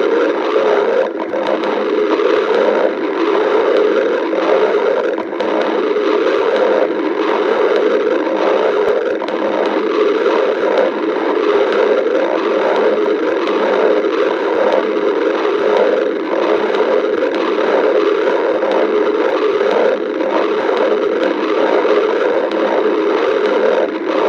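Hungry stomach growling: a continuous, unbroken gurgling rumble that flickers irregularly without pause.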